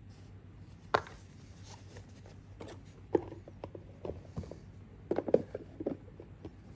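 Wristwatches and their boxes being handled on a table: a sharp click about a second in, another about three seconds in, and a quick run of clicks and taps around five seconds in.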